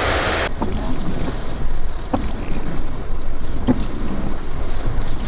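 Strong wind buffeting the microphone: a low rumbling with a few brief knocks. A bright hiss drops away abruptly about half a second in.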